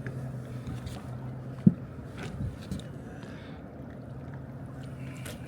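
Boat motor running steadily at low speed, a low hum, with one sharp knock against the boat a little under two seconds in.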